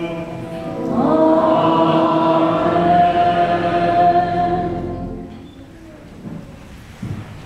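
Church choir and congregation singing a sung response, a single held chord of several voices lasting about four seconds before fading out. It answers the chanted close of the prayer, the closing Amen.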